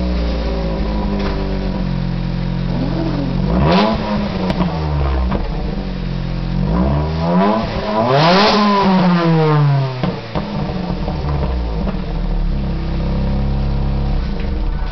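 2002 Ford SVT Focus's 2.0-litre four-cylinder, supercharged with a Jackson Racing kit, breathing through a BBK header and the stock exhaust with a cat-delete pipe: idling steadily and revved twice, the pitch rising and falling each time, the second rev higher. The owner thought this exhaust note sounded terrible.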